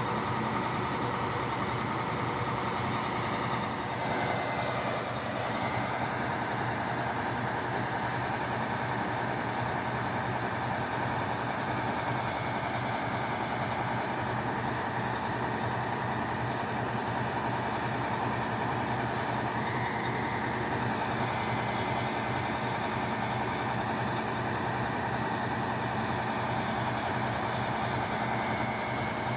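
Drilling rig's engine running steadily, with a brief dip in tone about four seconds in.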